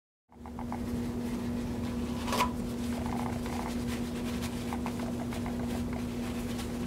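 Handling sounds of a plastic cup and a dry wadded paper towel being pulled out of it: faint crinkles and small clicks, with one sharp click about two seconds in. A steady low hum runs underneath.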